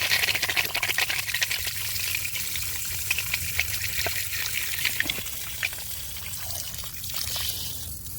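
Water rushing through newly repaired copper plumbing as the supply is turned back on: a hiss that starts strong and gradually eases off.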